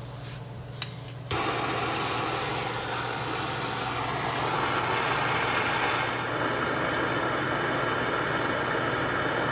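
An electric cooling fan motor kicks on abruptly just over a second in and keeps running steadily, switched on by the new radiator fan switch closing in the heated water at about 210 °F, which is the switch working. A sharp click comes just before it starts.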